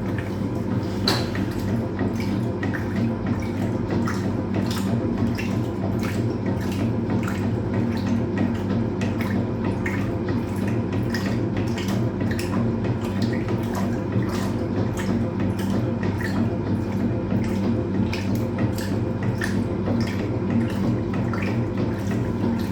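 Hoover Automatic 820 washing machine in its rinse, drum spinning: a steady motor hum with water splashing and dripping inside the tub and many small irregular ticks.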